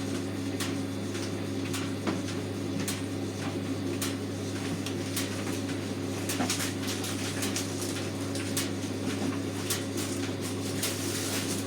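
Hotpoint FETV60 tumble dryer running, its drum bearing recently replaced: a steady motor hum with scattered light clicks.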